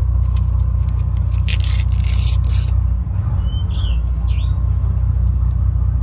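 A bird gives two short chirps about four seconds in, over a steady low rumble, with a clatter of tableware a second and a half to three seconds in.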